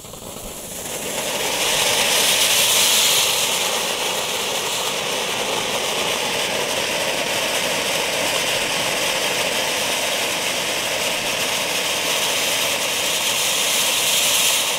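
Small F1 ground fountain (volcano firework) spraying sparks with a steady hiss. The hiss builds over the first two seconds, holds, and cuts off abruptly near the end as the fountain burns out.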